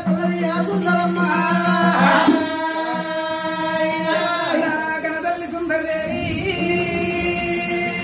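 Oggu katha folk singing: voices singing together in chorus, holding long steady notes.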